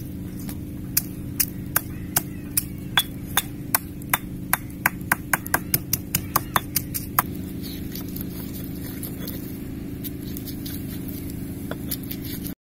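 Stone pestle pounding chopped ingredients in a stone mortar: a run of sharp knocks, about three a second, starting about a second in and stopping about seven seconds in. A steady low hum runs underneath.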